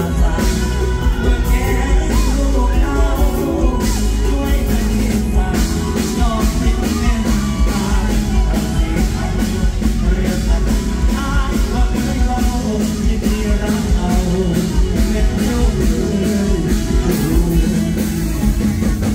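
Live Thai luk thung band music through a loud PA, with a steady drum beat and heavy bass under a male singer singing into a handheld microphone.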